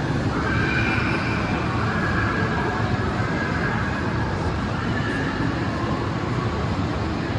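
Steady hubbub of a crowded shopping-mall food court: many people talking at once, mixed into a continuous din.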